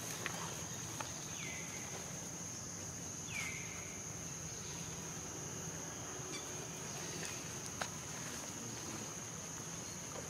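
Steady high-pitched drone of insects, with two short downward-sliding calls in the first few seconds and a few light clicks, one sharper near the end.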